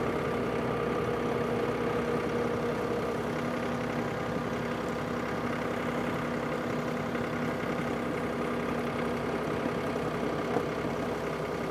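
John Deere compact tractor's diesel engine running steadily at a constant pitch, with no change in speed, as the tractor is driven.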